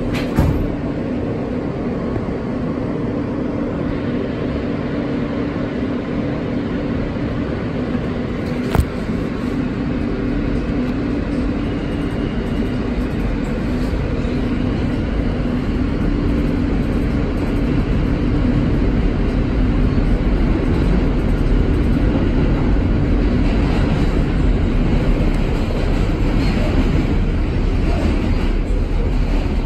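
An R160 subway car pulling out of the station and picking up speed into the tunnel, heard from inside the car. A steady low hum and the running noise of the wheels on the track slowly grow louder, with one sharp click about nine seconds in.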